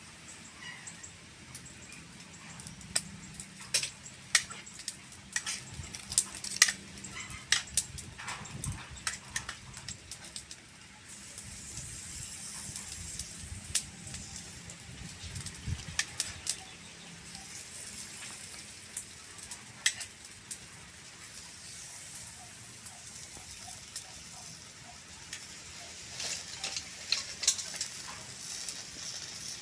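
Bildat shellfish sizzling in their shells on a wire grill over charcoal, with the hiss getting louder about a third of the way in. Many sharp clicks and clinks of shells and a metal pick against the grill, plate and steel bowl, thickest in the first third and again near the end.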